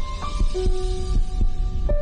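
Background music: a melody of held notes stepping from pitch to pitch over a steady low pulsing beat of about four beats a second.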